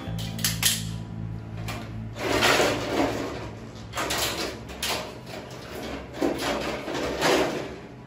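Plastic casing parts of a wall-mounted Daikin air conditioner's indoor unit being handled and wiped: a few sharp clicks, then several short bursts of plastic clattering and scraping.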